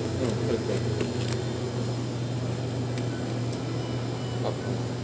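Convenience-store room tone: a steady low machine hum with a few faint clicks.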